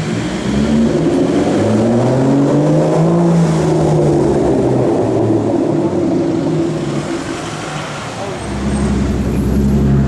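Aston Martin DBS's V12 exhaust rising in pitch twice as the car accelerates away. After a quieter spell, a deep steady low-rev exhaust rumble starts up close about eight seconds in.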